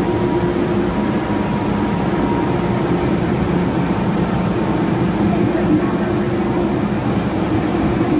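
Steady hum and rumble inside an MTR M-Train standing at a station platform, its onboard equipment running.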